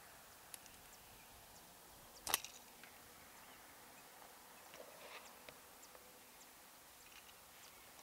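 Quiet outdoor background with a faint hiss and a few small scattered ticks, broken by a single sharp knock about two seconds in.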